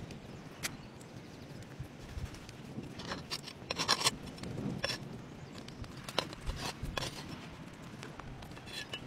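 Irregular small clicks and crackles as sliced tomahawk steak is pressed and pulled apart by hand on a hot cooking stone, busiest about three to four seconds in.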